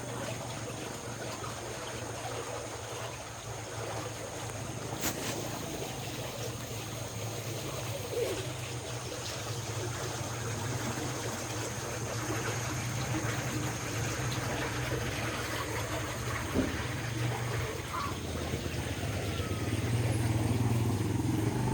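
A low, steady engine hum under general outdoor noise, growing louder near the end, with a sharp click about five seconds in.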